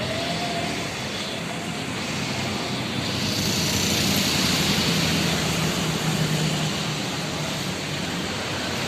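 Motor vehicle noise, with a low hum that swells about three seconds in and eases off again near the end.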